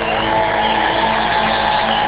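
Live rock band playing loudly, heard through a phone's microphone: sustained distorted notes, one sliding up just after the start and then held.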